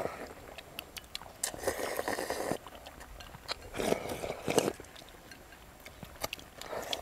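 Several people slurping and chewing rice noodles in curry, with two longer slurps, one about a second and a half in and another around four seconds in, among small clicks.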